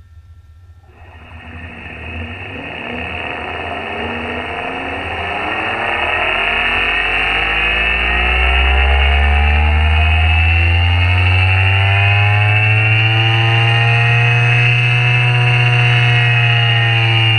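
Test-bench drive motor and slotted rotating drum spinning up through the speed range: a low hum with a rushing noise above it starts about a second in, rises steadily in pitch and loudness, then levels off with a slight drop in pitch near the end.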